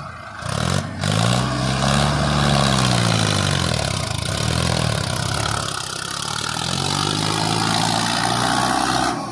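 Red Mahindra tractor's diesel engine revving up and down under heavy load, about three times, as it strains to pull a stuck tractor out of deep paddy mud. The sound cuts off just before the end.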